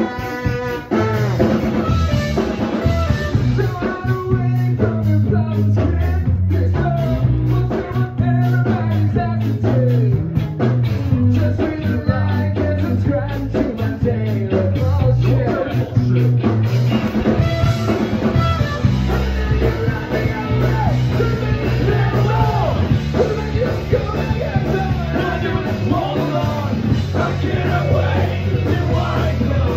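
Ska-punk band playing a song live, loud, with a driving drum beat.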